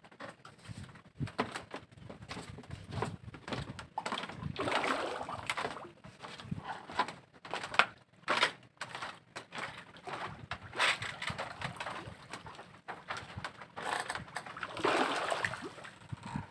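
Reservoir water lapping and sloshing around floating fish-cage floats, in uneven swells, with scattered irregular knocks and clicks.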